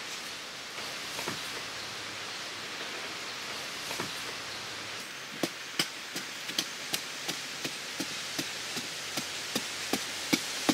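A steady rain-like hiss, then from about halfway a regular run of sharp knocks, about three a second, typical of a hand tool striking repeatedly.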